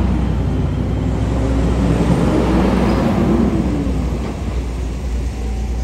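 Road traffic going through an intersection: a tractor-trailer's engine passes, its pitch rising and then falling, loudest two to three and a half seconds in, over a steady low rumble.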